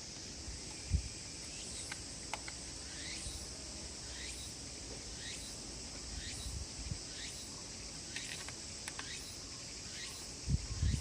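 Insects chirring steadily and shrilly, with a short call repeating about once a second. There is a low knock about a second in, and a few more low knocks near the end.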